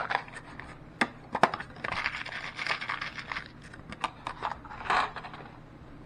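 A clear plastic bag of small copper crimp sleeves being handled: crinkling and rustling, with a few sharp clicks scattered through it, settling down near the end.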